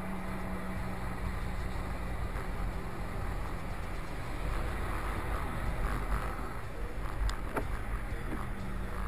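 Steady road and engine noise of a car driving on a wet road, heard from inside the cabin, with tyre hiss over a low rumble. A couple of faint ticks about seven seconds in.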